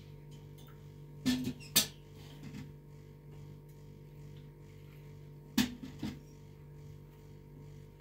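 Tea being poured from a metal teapot and a brass kettle into glass tea glasses on a tray, with two pairs of sharp clinks of metal and glass against the tray, one pair about a second in and another past the middle. A steady low hum runs underneath.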